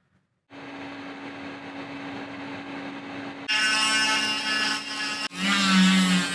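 A small electric motor starts about half a second in and runs steadily with a constant hum. About halfway a higher sound with several steady tones joins it, and near the end music comes in.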